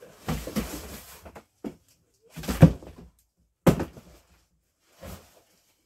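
A hockey goalie chest protector being lifted and pulled out of a cardboard box: irregular bursts of rustling and scraping against the cardboard, with a sharp thump a little under four seconds in.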